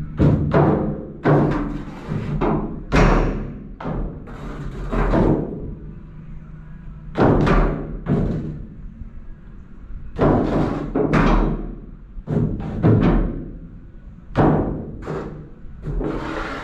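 Irregular hollow knocks and thuds, several seconds apart, echoing in an enclosed tunnel: the ride boat bumping against the walls of its water channel.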